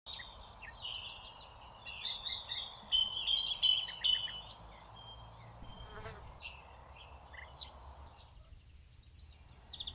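Outdoor birdsong: several birds chirping and twittering in quick, high notes, busiest in the first half, over a faint steady high-pitched whine and low background rumble.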